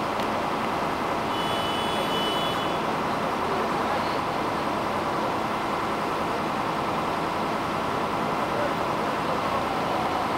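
Steady outdoor background noise: a running vehicle engine with distant voices murmuring. A thin high tone sounds for about a second and a half, starting about a second in.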